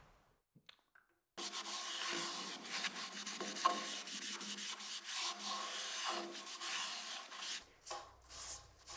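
A folded cloth wet with shellac sanding sealer is rubbed back and forth over the face of a turned wooden platter, a continuous scratchy rubbing. The rubbing starts about a second and a half in, after a moment of near silence.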